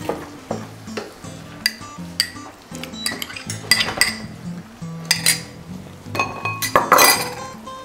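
A spoon or whisk clinking irregularly against a mixing bowl while stirring a thick ricotta-and-egg sauce, with a louder clatter near the end.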